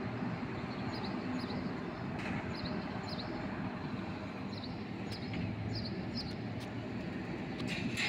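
A low, steady rumble, swelling slightly now and then, with short high chirps repeating about once or twice a second above it.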